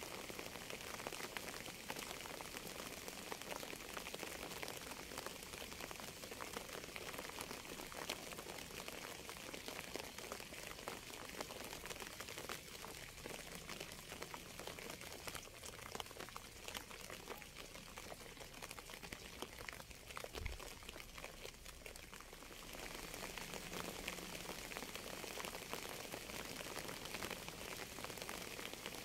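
Steady rain with a dense patter of drops. It eases a little through the middle and picks up again sharply about three-quarters of the way through.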